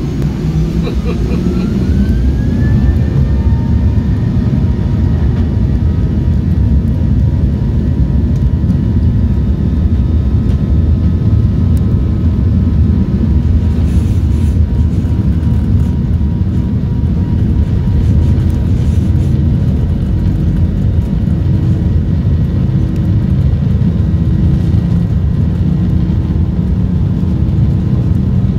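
Boeing 737 jet engines spooling up to takeoff thrust, heard from inside the passenger cabin: a whine rises in pitch and the sound grows louder over the first few seconds, then settles into a steady, loud roar with rumble as the airliner rolls down the runway.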